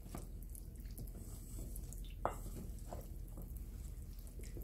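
Wooden spoon stirring starch flour and water in a stainless steel bowl: soft, wet squishing and scraping with small clicks, and one sharper click a little over two seconds in.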